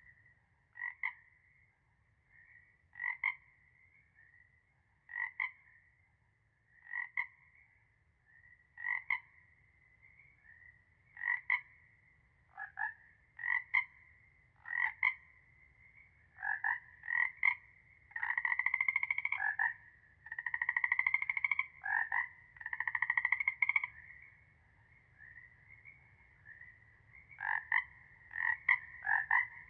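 Frog chorus: frogs croaking, at first single calls about every two seconds, then closer together, with several longer calls lasting a second or more in the middle and again near the end. A steady high trill runs faintly underneath throughout.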